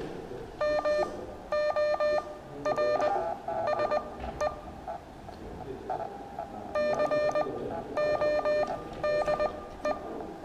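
Morse code practice tone: a steady-pitched beep keyed on and off in short and long elements (dits and dahs), sending characters of a practice word in about four groups separated by brief gaps.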